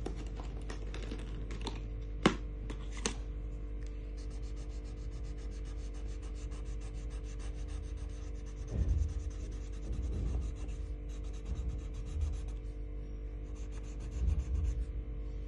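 A colouring tool scratching quickly back and forth on paper in fast, even strokes, over a steady low electrical hum. A sharp click comes about two seconds in and a smaller one a second later, and there are a few dull bumps in the second half.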